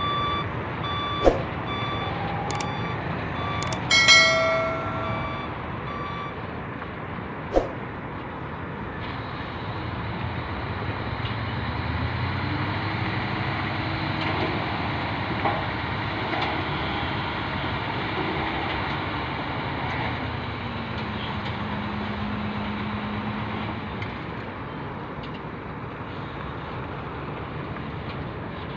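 Diesel dump truck reversing with its reverse alarm beeping steadily for the first six seconds or so, over the engine's steady running and a few sharp knocks, the loudest about four seconds in. From about halfway the engine revs up and holds as the bed is hydraulically raised to tip the load of soil.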